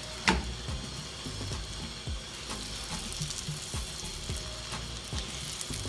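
Raw chicken pieces sizzling in hot oil with fried onions in a wok, stirred with a spatula that scrapes and knocks against the pan. A sharp knock about a third of a second in is the loudest sound.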